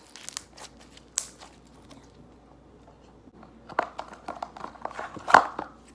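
Hands handling a clear plastic slime palette and pulling out a lump of slime: scattered light clicks and taps, bunching up in the second half, with one sharper knock near the end.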